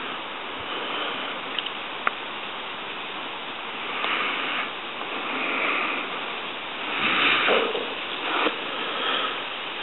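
Steady outdoor rushing noise at a calm waterside, with two short clicks about two seconds in and a few brief, higher-pitched sounds in the second half.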